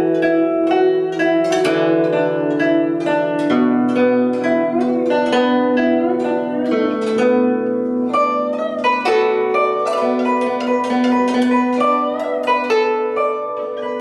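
Zhuque guzheng (Chinese zither) plucked with finger picks: a continuous melody of quick plucked notes ringing over sustained lower notes, a few of them bent in pitch.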